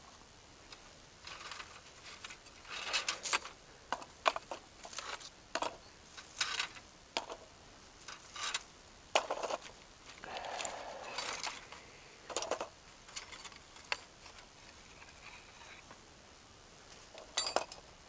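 Small rusty metal fragments being picked out of the soil by hand and dropped into a container: irregular clinks and scrapes, busiest over the first fourteen seconds, then a pause and a few more near the end.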